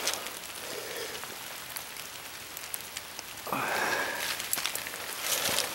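Rain falling steadily, an even hiss with scattered drop ticks. A louder swish rises about three and a half seconds in and lasts about a second, and another comes near the end.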